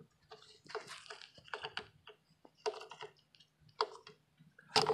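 A metal screwdriver clicking and rattling against the lawn mower engine's plastic carburetor cover while it is fitted back on, in short clusters about once a second, the loudest near the end.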